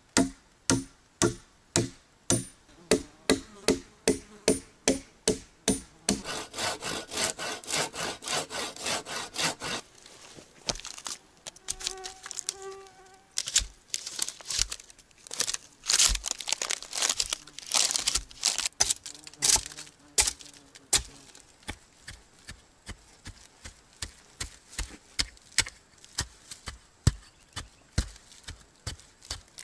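Axe blows on wooden log stakes, repeated knocking at about two to three strikes a second. About six seconds in comes a spell of fast, dense strokes, then after a quieter gap a run of louder blows before the steady knocking resumes.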